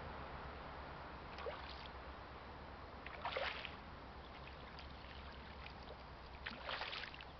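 Hooked asp splashing at the surface close to the bank while being played on a fly rod, twice, about three and a half seconds in and again near the end, over a steady hiss of the river.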